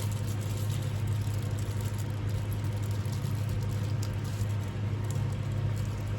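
A steady low hum runs unchanged throughout. Over it come light clicks and rustling from small parts being handled.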